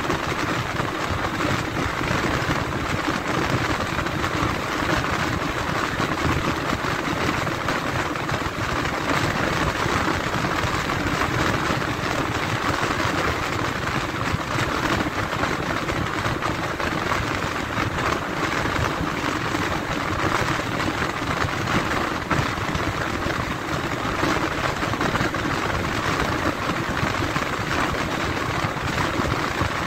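Steady, unbroken road noise of a vehicle on the move, with no change in level.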